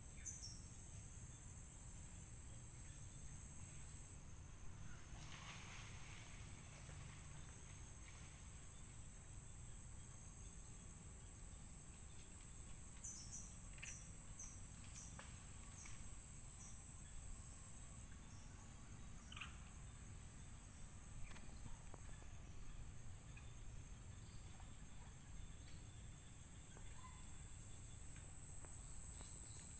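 A steady, high-pitched insect chorus drones without a break, with a handful of short bird chirps about halfway through.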